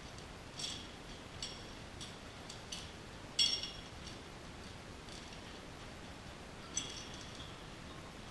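Light metallic clinks of hand tools and metal parts knocking together: about seven separate sharp clinks, each with a short ring, the loudest about three and a half seconds in.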